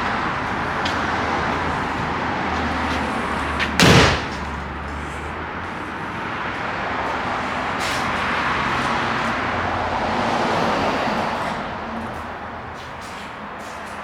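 Steady outdoor street and traffic noise, with one sharp, loud knock about four seconds in and a fainter click near eight seconds.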